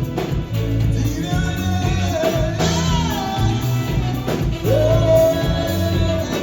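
Live highlife band playing: a singer holding long notes over guitar and a steady, repeating bass line.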